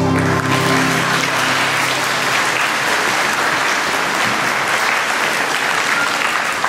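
Audience applauding steadily. The last held chord of the song's music fades out under the clapping in the first two seconds or so.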